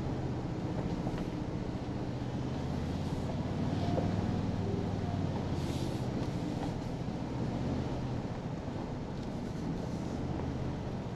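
2023 Toyota Tundra TRD Pro's twin-turbo V6 running at a steady low hum as the truck crawls along a dirt trail, heard from inside the cab, with tyre and trail noise and a few light rattles.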